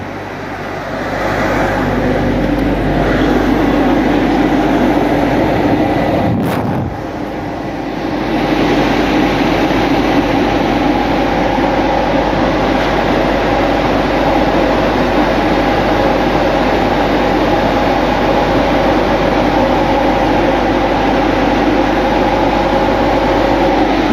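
Blower dryer of an automatic car wash running: a loud, steady rush of air, with a short dip in level about six seconds in.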